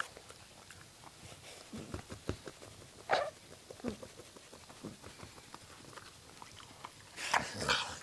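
A black puggle (pug–beagle cross) chewing on plastic: irregular clicking, crackling bites with a few snorty grunts ('onking'). The louder sounds come about three seconds in and again near the end.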